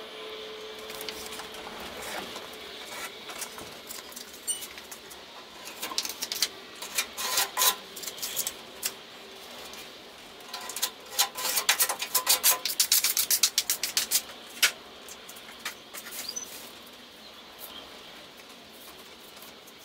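Body filler being worked with a plastic spreader: irregular scraping and clusters of quick, sharp clicks, thickest in the middle and dying away near the end.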